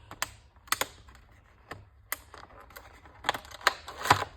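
Handling of a packaged wire brush set: scattered sharp clicks and crackles of packaging and brushes being handled, coming thicker near the end.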